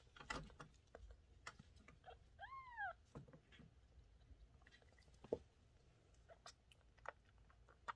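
A kitten's single short meow, rising then falling in pitch, about two and a half seconds in, amid faint scattered clicks and taps.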